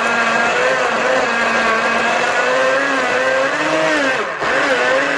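Pioneer Woman personal blender's motor running as it blends a berry smoothie, a steady whine whose pitch sags and wavers under the load, with a brief dip about four seconds in before it picks back up.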